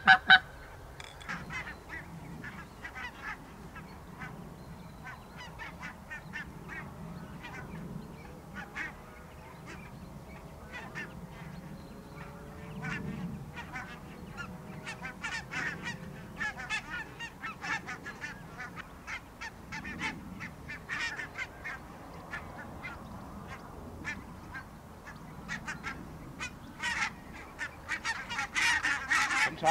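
Flock of barnacle geese calling: many short, yapping honks overlapping, growing louder and denser near the end as the flock comes in close.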